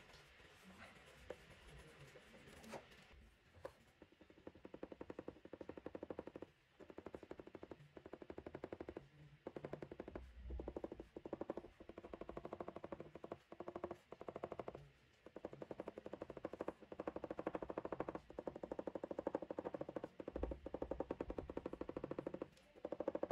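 Black felt-tip pen scratching on paper in quick short strokes, a fast run of ticks in bursts broken by brief pauses as the pen lifts, starting about four seconds in.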